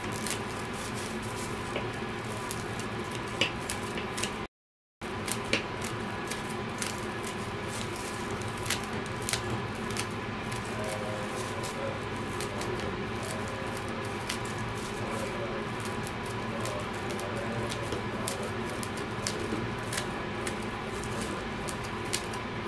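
Small scissors snipping repeatedly through the loops of a yarn pom-pom as it is trimmed into a ball: an irregular run of short, crisp snips. The sound cuts out completely for about half a second some four seconds in.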